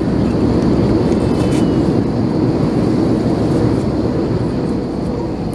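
Steady roar of an Airbus A321's cabin noise in flight, the hum of its CFM56 engines and the airflow past the fuselage, with a faint steady tone running through it.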